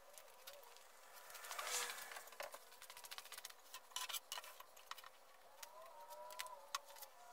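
Plastic pet-door frame pieces and a cardboard box being handled on a screen door: scattered light clicks and taps with a brief rustle about two seconds in. A faint wavering tone sounds near the end.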